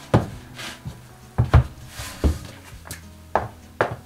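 A handful of short, sharp knocks and clunks as things are moved about and a power inverter is lifted out, over soft background music.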